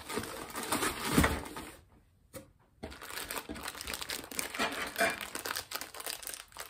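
Plastic shrink-wrap crinkling as a wrapped bundle of 45 rpm records is handled. The sound breaks off briefly about two seconds in, then the crinkling and rustling go on.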